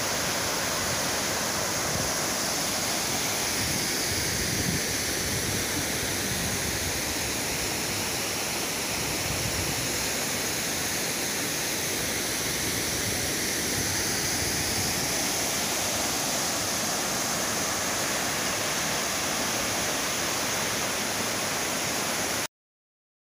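Waterfall pouring over a rock ledge into a pool: a steady rush of falling water that cuts off suddenly near the end.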